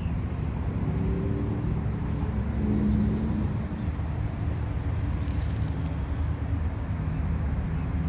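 A motor vehicle's engine running: a steady low hum with a few pitched tones, swelling slightly about three seconds in.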